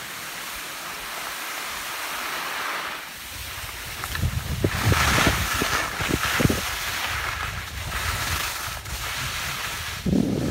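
Wind buffeting a phone microphone during a downhill ski run, with skis hissing over the snow. The buffeting starts about three seconds in and is loudest around five seconds, with a short thump near the end.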